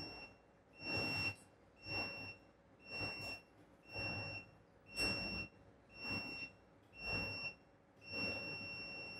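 RiEye Mk2S operating table beeping about once a second while both arrow buttons on its hand control are held, each high beep joined by a short rush of noise: the synchronization is in progress. About eight seconds in the beeping turns into one continuous tone, the signal that the synchronization has succeeded.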